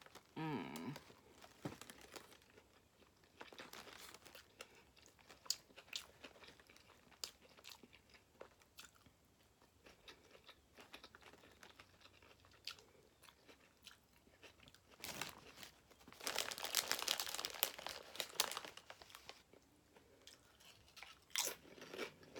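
Close-up eating sounds of a Subway sandwich: biting and chewing with small wet clicks and crunches. There is a louder crunching, rustling stretch lasting a few seconds past the middle, and another short one near the end.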